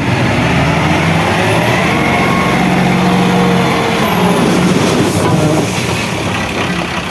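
A vehicle engine running under load, its pitch rising and then falling over a few seconds, with a thin high whine through the middle.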